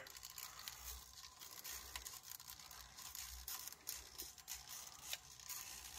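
Faint scuffing and small clicks from a 1/24-scale RC rock crawler with a Mofo pancake motor slow-crawling over an obstacle, tyres working against a loose tyre and the mat.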